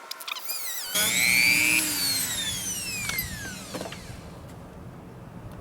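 Small handheld power tool starting about a second in. Its whine falls steadily in pitch over the next few seconds as it winds down, with a harsher grinding edge in its first moments. It is being used to enlarge a hole in plastic motorcycle fairing for a frame slider bolt.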